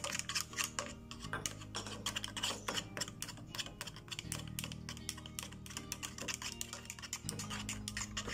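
Spoon stirring quickly in a small metal pot, clicking and scraping against the sides many times a second as xanthan gum and glycerin are dissolved into water. Background music with held notes plays underneath.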